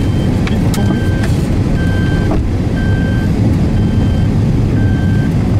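Car driving on a road, heard from inside the cabin: a steady engine and tyre rumble with an electronic warning chime beeping about once a second.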